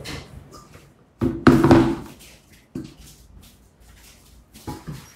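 A few knocks and thumps. The loudest, about a second and a half in, rings on briefly.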